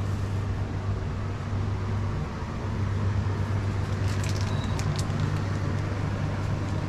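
A steady low hum, with a few sharp clicks and a short high-pitched beep about four seconds in.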